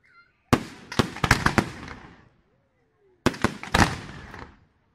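Aerial firework shells bursting in two quick volleys of sharp bangs, the first about half a second in and the second a little past three seconds. Each volley echoes away for about a second.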